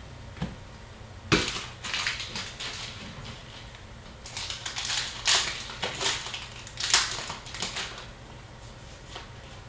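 Hockey card packs being torn open and handled: wrappers crinkling and cards shuffling, as irregular crackles and clicks.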